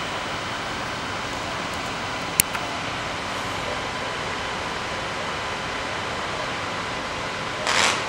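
Steady rush of fire-hose jets spraying water, over the hum of fire-appliance pumps running. A sharp click comes about two and a half seconds in, and a short burst of hiss near the end.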